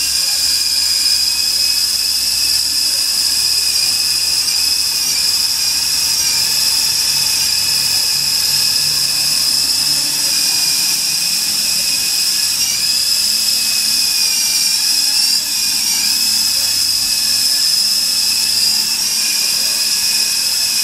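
Electric motors and twin coaxial rotors of a Volitation three-channel RC toy helicopter running with a steady high-pitched whine. The pitch dips briefly a few times.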